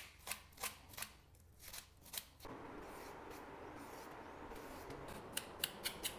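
A run of sharp, crisp clicks or snips, about three a second. About two and a half seconds in they stop and a steady faint hiss begins, and the clicks come back near the end.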